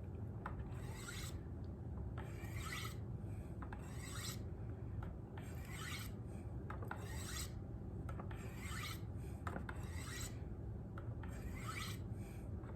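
Steel knife edge being drawn with light pressure down the fine white ceramic rods of a Spyderco Sharpmaker: a soft hissing scrape about once a second, alternating sides to polish the edge.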